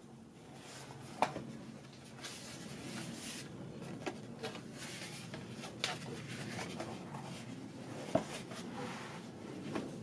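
Stiff hot-pressed watercolour-paper pages of a hand-bound journal being turned and handled: paper swishes and rustles with a few sharp taps, the loudest about a second in and again about eight seconds in.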